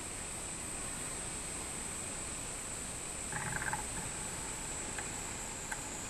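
Cicadas singing in the trees: a steady, high, even drone. About three and a half seconds in, a brief lower call from some other animal cuts through, and there are two faint clicks near the end.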